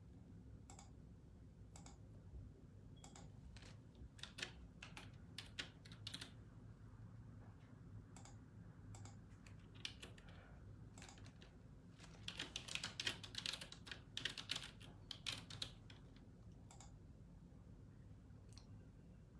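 Typing on a computer keyboard: scattered keystrokes, then a quicker run of them about two thirds of the way through, over a faint low room hum.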